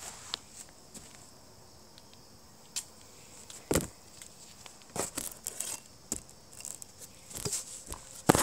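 Scattered rustles and light clicks of hands handling things near the microphone, with a faint steady high hum behind them.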